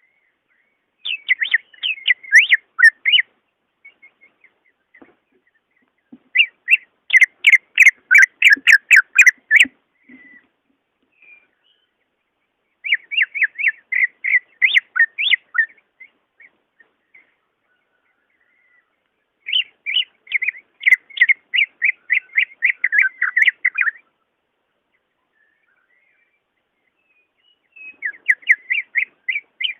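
Cucak ijo (green leafbird) singing: five bursts of rapid, chattering notes, each a few seconds long, with short pauses between them.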